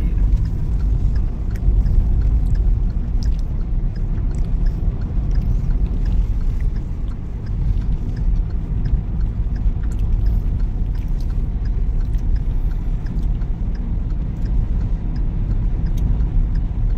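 Steady low rumble of a car's road and engine noise, heard from inside the cabin while cruising on an expressway.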